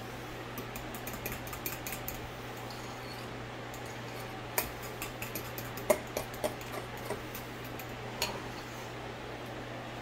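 Metal spoon stirring a thick, creamy dressing in a ceramic bowl, clinking and scraping against the bowl: a run of quick light clinks in the first couple of seconds, then a handful of sharper taps in the middle, the loudest about six seconds in.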